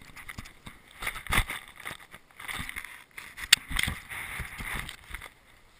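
Gloved hands scooping and packing snow: irregular crunching and scraping, with a sharp knock about three and a half seconds in.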